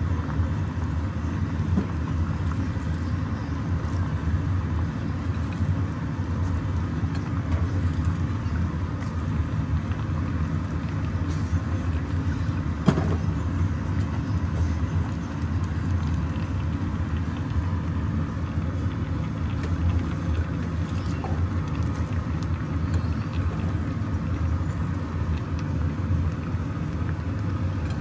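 A steady low rumble, with a single sharp click about halfway through.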